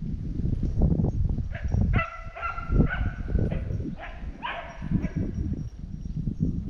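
Hunting dogs barking and baying several times, in two bouts around two to three seconds in and again near five seconds, as the hounds work the drive. Under them runs a steady low rumble of noise on the microphone.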